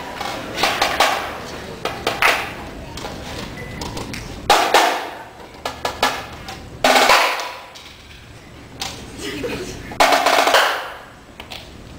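Marching snare drums played in short bursts and single hits with pauses between, three loud bursts standing out, each dying away over about a second, with lighter strokes in between.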